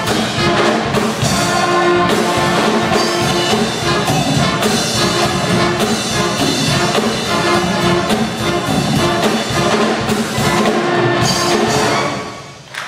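School jazz band playing, with brass and drum kit; the music breaks off about twelve seconds in as the tune ends.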